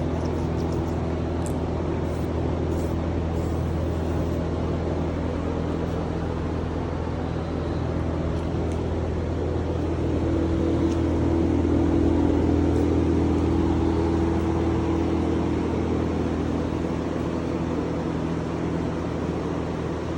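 A steady machine hum with a low drone and several steady tones over it, swelling a little about ten seconds in and easing back off.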